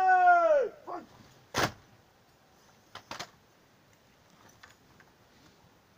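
A drill commander's long drawn-out word of command, held on one pitch, trails off with a falling pitch. A short syllable follows. About a second and a half in, one sharp crash comes as the guard carries out the drill movement together, followed by two lighter knocks around three seconds in.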